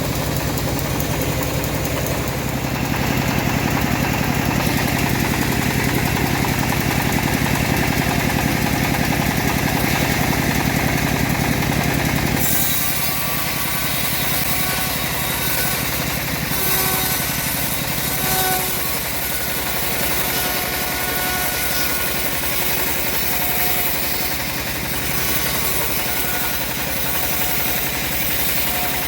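Engine-driven homemade bandsaw mill running steadily while sawing a teak log. About twelve seconds in, the deep engine sound drops away and a higher hiss takes over.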